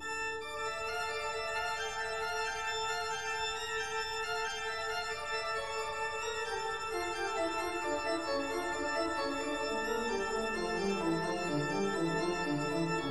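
Background music: sustained organ-like keyboard chords, with a bass line stepping downward through the second half.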